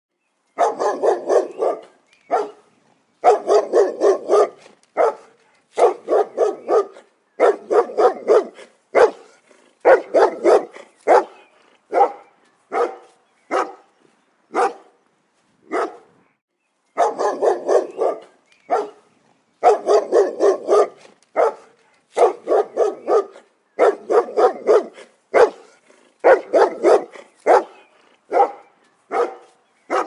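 Rottweiler barking in rapid volleys of several barks each, separated by short pauses, with only scattered single barks for a few seconds in the middle.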